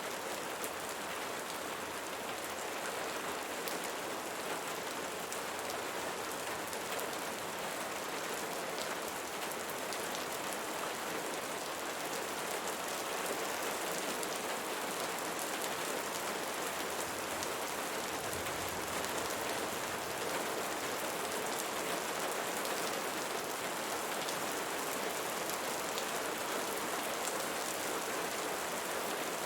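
Steady rain falling on a surface, an even hiss with fine drop ticks, unchanging throughout.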